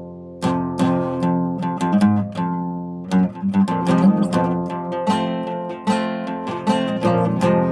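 Acoustic guitar being played: plucked notes and chords ring and die away, with the strokes coming closer together in the second half.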